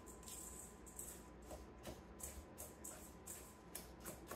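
Spatula stirring a dry oat, flour and sugar crumble topping in a stainless steel mixing bowl: a soft, faint rustling scrape repeated about three strokes a second.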